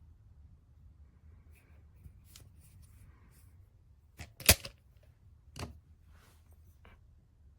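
Handling noise: a few scattered clicks and knocks, the loudest a single sharp click a little past halfway, with a second clear knock about a second later.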